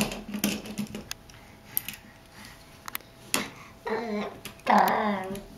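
A toddler vocalizing twice near the end, two short wavering voiced sounds, after a run of light clicks and a sharp knock from toys being handled.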